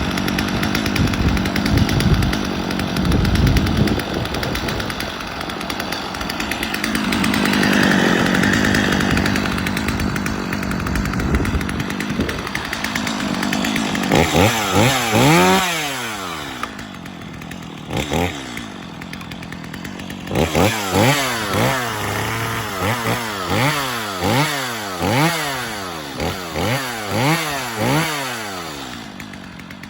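Stihl MS 250 two-stroke chainsaw running at high speed, then dropping toward idle and being revved up and down over and over in quick throttle blips.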